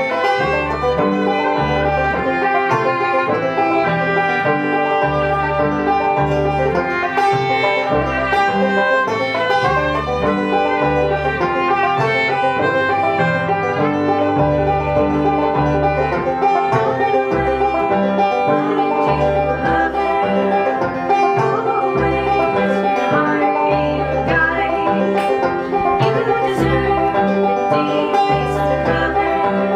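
A string trio of banjo, fiddle and upright bass playing an instrumental tune, the bass walking under the banjo and fiddle.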